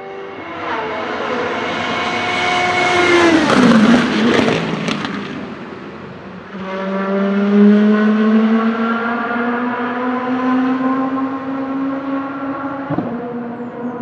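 Rebellion R-13 LMP1 prototype's Gibson GL458 4.5-litre V8 racing past at speed, its pitch falling steeply as it goes by about four seconds in. From about halfway the V8 is heard accelerating hard, its pitch climbing steadily.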